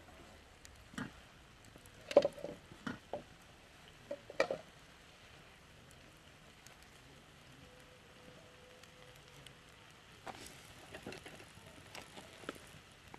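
Wooden spoon stirring vegetables in a Lodge cast-iron skillet: clacks and scrapes against the pan in two spells, the loudest about two seconds in, over a faint steady sizzle of frying.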